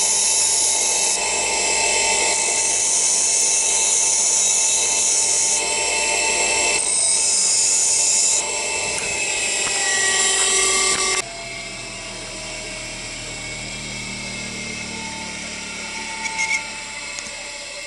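Ferm bench grinder running while a thin steel awl is sharpened against its stone wheel: a steady motor whine under a hissing grind that swells and eases as the tip is pressed on. About eleven seconds in it stops abruptly, leaving a much quieter background with a few light clicks near the end.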